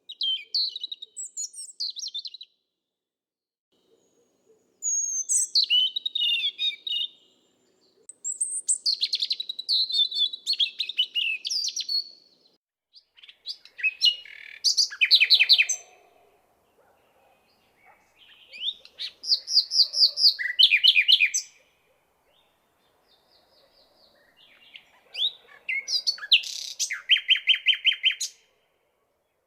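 Songbird song: about six short, varied phrases of chirps and whistles with pauses of a second or two between them, several ending in a fast trill.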